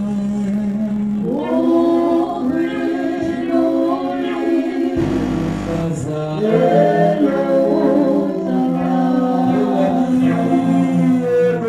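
A small mixed group of male and female voices singing a worship song in harmony through handheld microphones, with long held notes. A brief low rumble comes in about halfway through.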